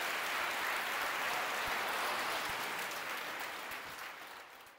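Audience applauding, a steady clatter of many hands, fading away near the end.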